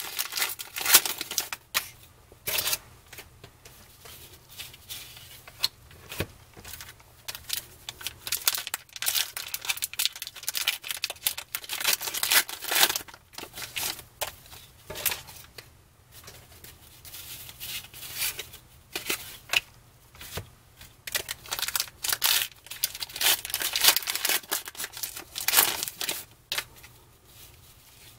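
Plastic wrapper of a baseball-card wax pack being torn open and crinkled by hand, in irregular bursts of tearing and crackling rustles.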